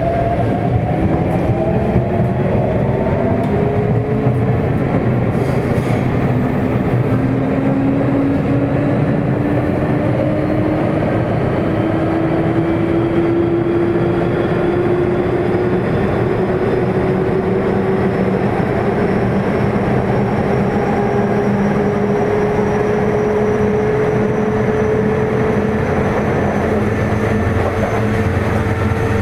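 Sotetsu 8000 series train heard from inside a motor car: the Hitachi IGBT-VVVF inverter and traction motor whine rises slowly and steadily in pitch as the train gains speed, over a constant rumble of wheels on rail.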